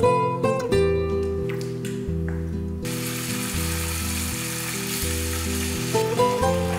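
Diced pork sizzling as it stir-fries in hot oil in a frying pan, the hiss starting suddenly about three seconds in. Light plucked-guitar background music plays throughout.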